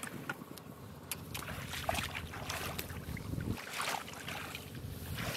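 Faint splashing and rustling of hands groping through shallow muddy paddy water and rice plants, in irregular small ticks and swishes over a low wind rumble on the microphone.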